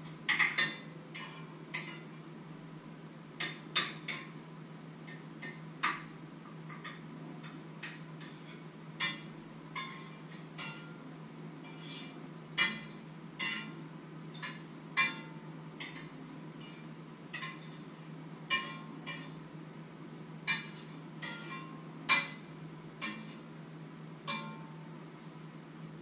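A metal spoon clinking against a pot while stirring: irregular sharp clinks with a short ring, roughly one a second, some louder than others. A steady low hum runs underneath.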